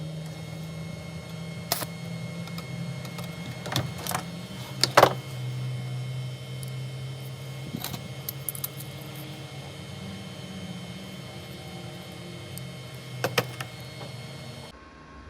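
A steady mechanical hum with scattered sharp metallic clinks and knocks, the loudest about five seconds in: metal tools being handled and struck in a workshop.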